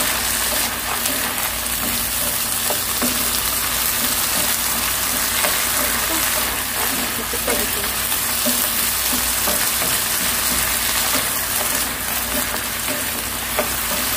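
Roasted peanuts and green onion sizzling in a soy sauce glaze in a frying pan, stirred with wooden spatulas, with scattered small clicks of peanuts and wood against the pan.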